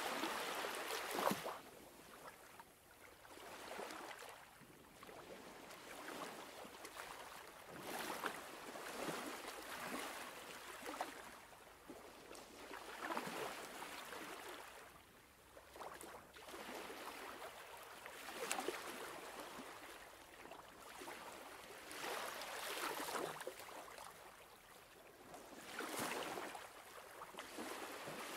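Sea washing and splashing against the rocks of a harbour breakwater, surging and ebbing every few seconds.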